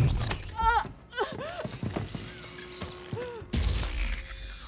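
Science-fiction film sound effects: a burst of noise, then a string of short tones that each rise and fall, and a second noisy burst about three and a half seconds in.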